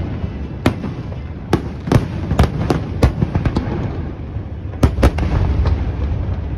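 Fireworks finale: aerial shells bursting in quick succession, about a dozen sharp bangs over a continuous low rumble.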